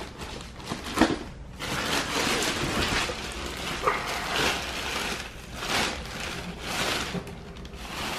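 Black plastic garbage bag crinkling and rustling in uneven bursts as it is pulled open and rummaged through by gloved hands.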